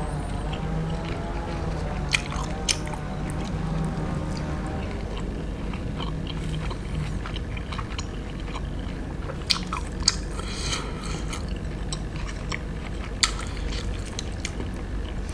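Close-up eating sounds: a man chewing pieces of tahu gejrot, fried tofu in spicy sauce, with about five sharp clicks as a wooden skewer hits the plastic tub. A faint pitched background sound runs under the first half.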